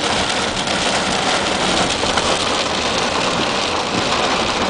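Heavy rain falling steadily on a car, heard from inside as an even hiss.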